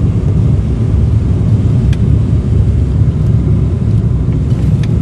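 Cabin noise inside a propeller airliner in flight: a loud, steady, low drone of the engines and airflow.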